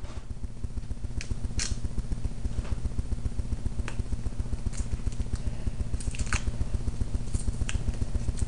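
Scissors snipping and packaging being handled as a taped mail package is cut open: about ten sharp, irregular clicks over a steady low hum.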